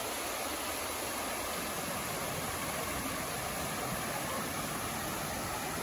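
Steady rushing of water falling at a waterfall, an even hiss-like roar with no breaks.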